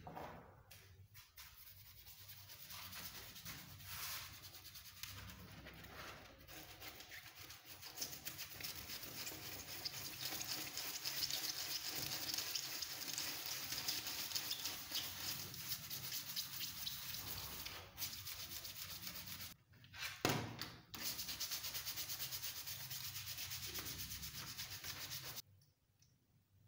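A stiff bristle brush scrubs a rusty flat steel blade lying wet in a shallow metal tray, making a rapid scratching that grows louder about eight seconds in. The scrubbing breaks off briefly near twenty seconds and stops suddenly about twenty-five seconds in.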